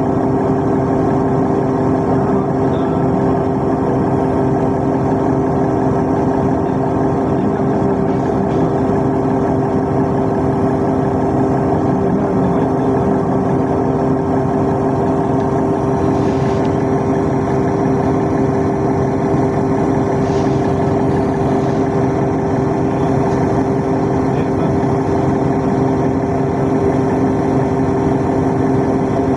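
Riyadh Metro train running at steady speed: a constant rumble with a steady hum.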